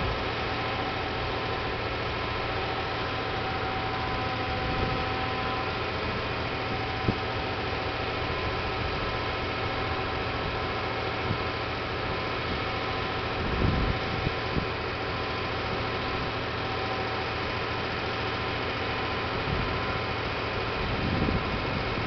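Mercedes-Benz Actros 4144 concrete pump truck's engine running steadily with a constant hum, driving the hydraulics of the Putzmeister 46 m boom as the boom moves. A few short low bumps come about halfway through and again near the end.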